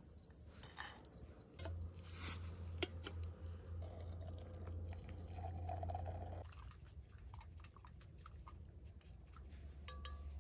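Steaming water poured from a small camp kettle into a steel pot, running steadily and stopping abruptly about six and a half seconds in. Light clinks and clicks of metal cookware being handled.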